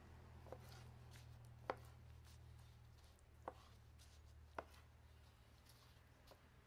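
Knife blade knocking on a cutting board while slicing smoked beef strip loin: four or five sharp knocks a second or so apart, the loudest a little under two seconds in.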